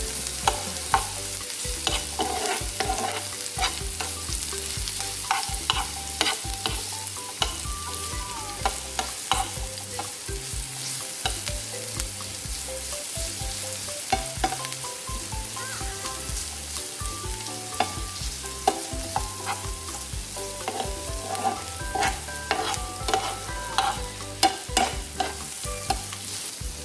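Diced red onion sizzling as it sautés in oil in a frying pan, stirred with a metal spoon that clicks and scrapes against the pan again and again.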